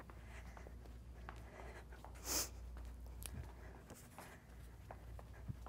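Faint footfalls of a person galloping on rubber gym flooring over a low steady hum, with one short breathy hiss about two seconds in.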